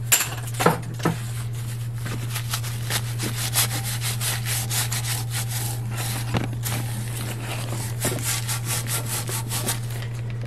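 Hand rubbing over freshly cut, rough threads on a 1-inch black iron pipe: a fast, scratchy rasp, with a few sharp knocks in the first second. A steady low hum runs underneath.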